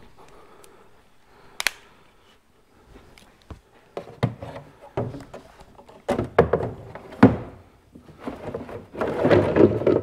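Equipment being handled: scattered knocks, clunks and rattles, with a sharp click about a second and a half in and a busier stretch of rattling near the end.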